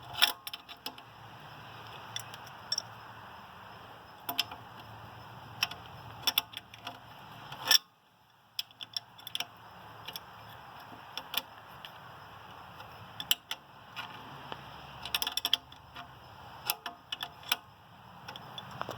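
Scattered metal clicks and clinks of a hand wrench working on the alternator's bolts and wiring connections as they are snugged down, over steady background noise that drops out briefly about eight seconds in.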